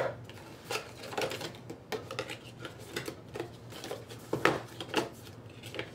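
Cardboard box and paper packaging being handled on a wooden desk: irregular taps, knocks and rustles, the sharpest knock about four and a half seconds in.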